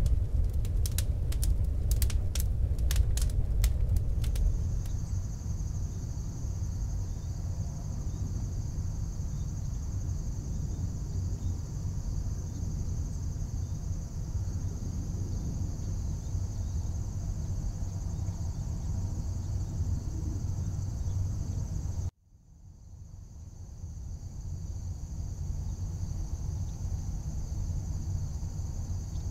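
A steady high insect drone over a low background rumble, after a quick run of sharp clicks in the first few seconds. Everything cuts out suddenly about three-quarters of the way through, then fades back in.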